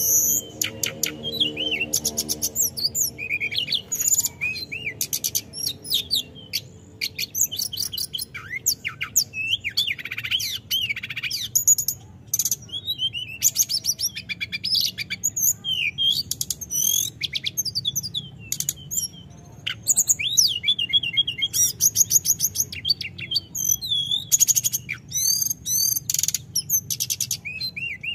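Male hill blue flycatcher (tledekan gunung) singing a long, continuous song of quick whistled slurs and fast trills, with only short breaks.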